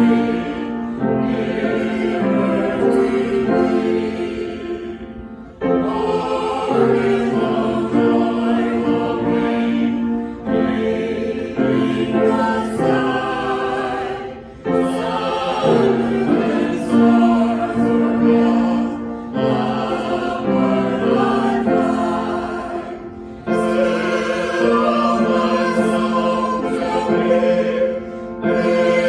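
A choir singing sacred music in slow, sustained phrases of about four to five seconds, each ending in a brief breath pause.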